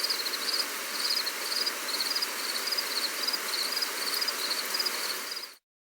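Gentle rain falling as a steady hiss, with insects chirping in short high trills about twice a second. It cuts off abruptly near the end.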